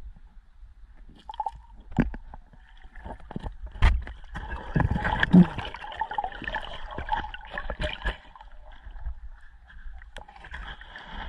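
Underwater sound picked up by a submerged camera: scattered sharp clicks and knocks, with a longer stretch of muffled gurgling water from about four to nine seconds in.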